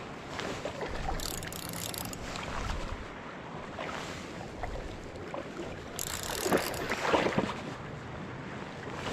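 Shallow river riffle running over cobbles close to the microphone. A few louder splashes and sloshes come about six to seven and a half seconds in.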